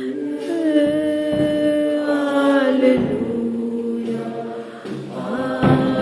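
A church congregation singing a slow hymn together, many voices holding long sustained notes.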